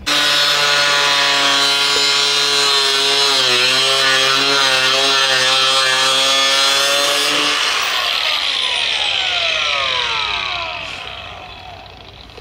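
Cordless power tool cutting the edge of a widebody fender panel: a loud, steady buzz whose pitch sags briefly under load. The cutting stops about seven and a half seconds in, and the tool winds down with a falling whine over the next few seconds.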